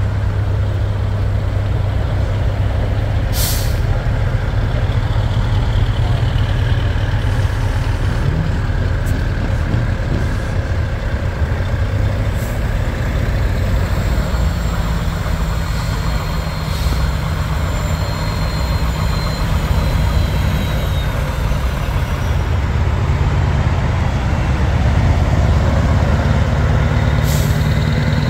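Heavy truck engine running steadily with a deep, low drone, punctuated by two short air-brake hisses, one about three seconds in and one near the end. A faint high whine slowly falls in pitch midway through.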